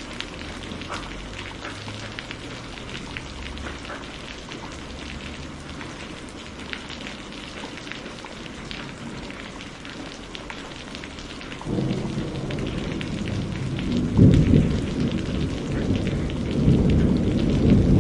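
Steady rain with separate drops landing close by; about twelve seconds in, a low rumble of thunder sets in and builds, loudest near the end.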